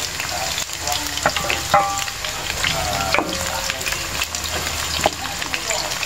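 Sliced red onion rings sizzling in hot oil in a nonstick wok, stirred with a wooden spatula. A steady crackling hiss runs throughout, dotted with sharp clicks, the loudest about two seconds in.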